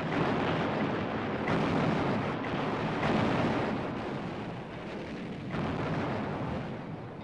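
Warship's heavy guns firing in a naval bombardment: a run of booming blasts, each trailing off into a long rumble, with new blasts about a second and a half, three and five and a half seconds in.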